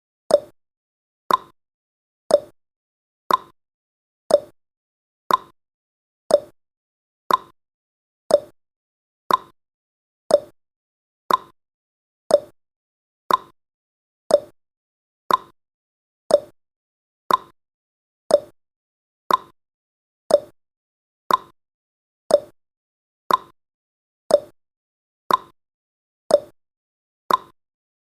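Countdown timer's ticking sound effect: a short, sharp click once every second, evenly spaced and dying away quickly after each stroke.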